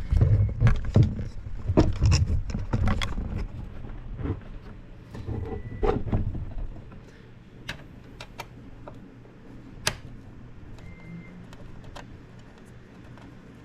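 A screwdriver working the screws that hold a 3D printer's power supply, with knocks and rumbling handling of the metal printer for the first several seconds, then quieter scattered clicks as a screw is backed out.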